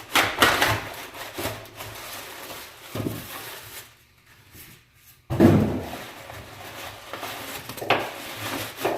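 Handling noise from a new sliding compound miter saw: rubbing and several knocks, the loudest about five seconds in, as the saw is worked and moved.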